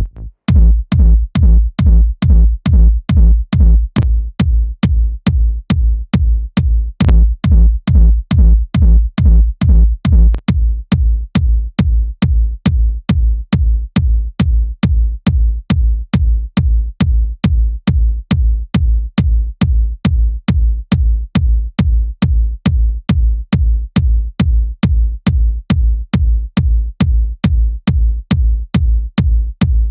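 Looped electronic drum pattern from sampled drums: a deep kick drum hits about twice a second with sharp clap and hat ticks on top, run through the Waves H-Comp compressor plugin. About ten seconds in, the kick loses some of its upper body.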